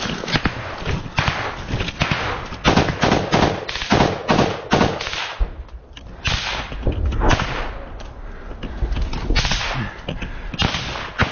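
Small-arms gunfire: sharp cracks, many in quick strings in the first half and fewer later, mixed with the rustle and snap of dry branches close to the microphone.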